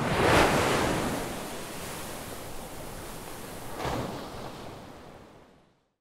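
Sea waves washing, with a swell about half a second in and another about four seconds in, then fading out to silence near the end.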